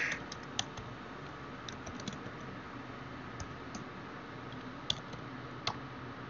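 Scattered keystrokes on a computer keyboard, a few sharp clicks at a time with short pauses between, over a faint steady hiss.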